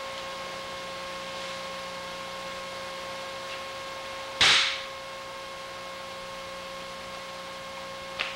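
Steady electrical hum with a faint steady tone, broken about halfway by one sharp, hissing crack that dies away within half a second; a small click follows near the end.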